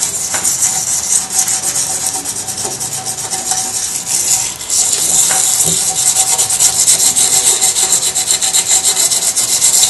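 Small piece of sandpaper rubbed by hand over cured epoxy resin on a tile, a steady scratchy hiss of quick short strokes with a brief pause about halfway. The sanding scuffs the glossy resin so acrylic paint and a later clear resin layer will hold.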